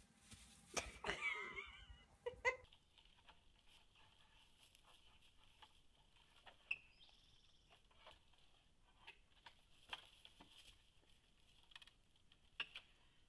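A goat's short, wavering bleat about a second in, followed by a couple of sharp knocks. Then a faint steady hiss with scattered soft clicks and taps.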